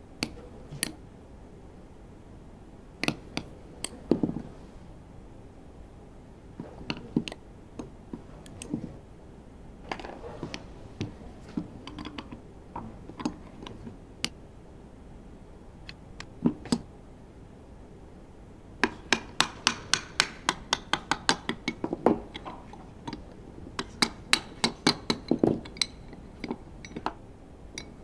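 Light metallic clicks, taps and clinks from a Honda RA100E V10 piston, connecting rod and small hand tool being handled and worked apart on a bench. Past the middle comes a quick run of light clicks, about six a second, then more scattered clinks near the end.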